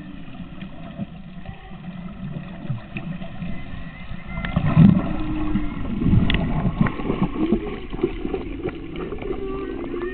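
Humpback whale song heard underwater: long, drawn-out tones that slide up and down in pitch, with fainter higher calls, over a low rumble of water noise that swells about halfway through.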